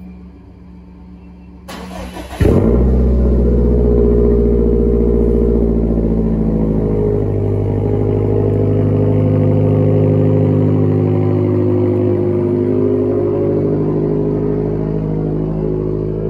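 Subaru WRX STI's turbocharged 2.5-litre flat-four cold-starting through a Tomei titanium cat-back exhaust. It cranks briefly, catches about two and a half seconds in, then settles into a loud, steady cold-start high idle that eases off slightly toward the end.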